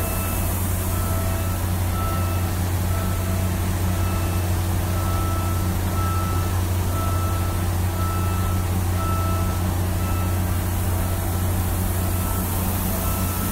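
A GEU15C diesel locomotive idling, a steady low drone with a faint higher tone that comes and goes.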